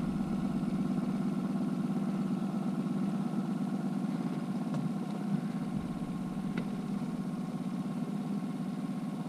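Boat motor running steadily at trolling speed, an even low hum with a couple of faint ticks over it.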